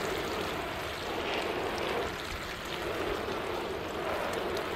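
Water showering from a plastic watering can's rose onto small pots of soil and wet cardboard: a steady spray.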